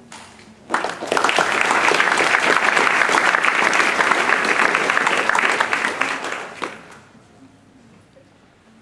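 Audience applauding, beginning sharply about a second in and dying away after about six seconds.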